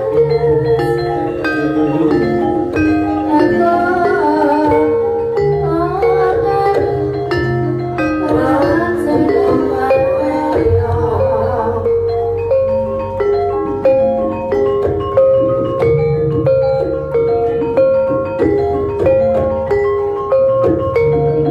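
Live Javanese gamelan playing: bronze-keyed saron and bonang gong-chimes struck in a steady, repeating melody, with drum strikes and low gong tones underneath.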